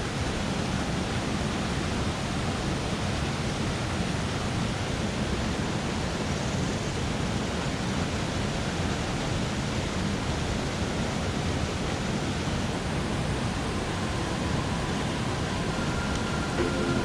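Waterfall rushing, a steady even roar of falling water. Music comes in faintly near the end.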